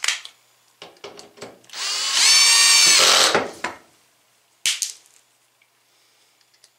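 Cordless drill-driver motor run for about a second and a half, its whine rising briefly and then holding steady. A few light clicks come before it, and a single sharp click about a second after it stops.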